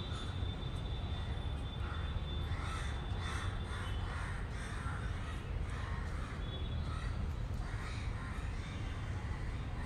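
Crows cawing in a run of repeated short caws from about two seconds in, over a steady low rumble.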